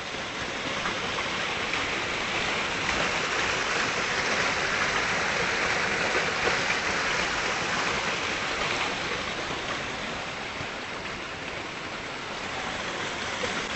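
A steady rush of water running over rocks, a little louder in the middle and easing slightly toward the end.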